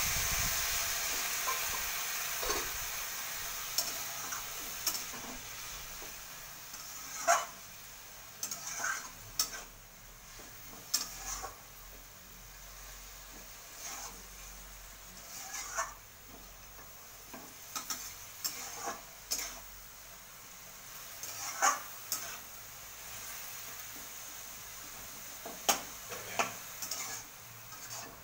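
Hot water sizzling in a metal kadai of frying mustard greens and soybean chunks, dying down over the first several seconds. Then a metal spoon clinks and scrapes against the kadai at irregular intervals as the mixture is stirred, over a faint continuing sizzle.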